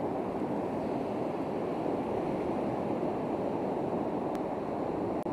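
Steady rush of surf on the beach, mixed with wind on the microphone.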